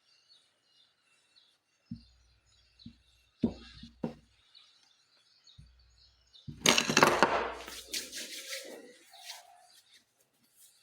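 Dishes and cutlery knocking and clinking at a breakfast table: a few separate knocks, then a longer, louder clatter about two-thirds of the way in. Birds chirp faintly in the background.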